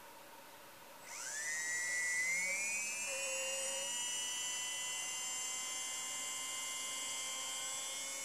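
A BLX 2050 kV brushless RC car motor, driven by a motor analyzer, spins up unloaded for a kV measurement. About a second in a high whine starts and rises in pitch, then holds nearly steady as the motor runs up past 11,000 rpm, with a thin higher-pitched electronic whine above it.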